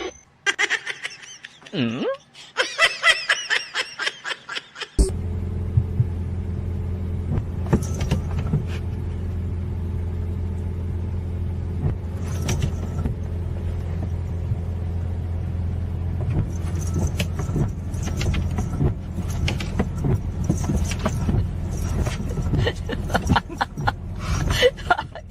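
A short stretch of scattered higher-pitched voices or calls, then an abrupt switch about five seconds in to a steady low droning hum, like a running vehicle engine, with sharp clicks and brief higher-pitched sounds over it.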